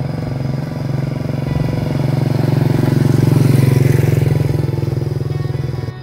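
Small motorcycle engine running, growing louder to a peak a little past the middle and then dying away, over quiet background music.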